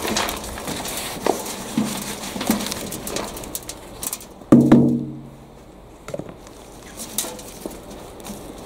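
A plastic plant pot knocked and tipped out into a steel wheelbarrow: a few knocks and scrapes, then one loud bang about four and a half seconds in as the rootball and compost drop into the tray, the barrow ringing briefly. Afterwards the soft rustle of gloved hands working through loose compost.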